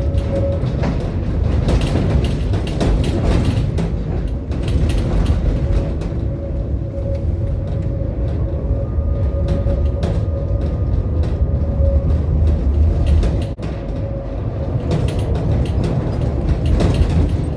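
Tram running on its rails: a steady low rumble with rattling and frequent clicks, and a faint steady whine through most of it.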